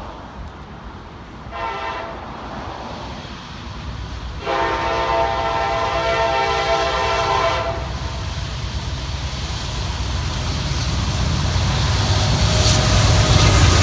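Locomotive air horn sounding a chord: a short blast, then a long blast of about three seconds. Under it a low rumble of the train grows steadily louder as it approaches.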